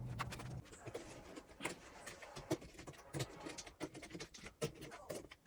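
Faint, irregular clicks, taps and light scrapes of hand work on small parts and tools during a mixer repair. A low hum cuts off about half a second in.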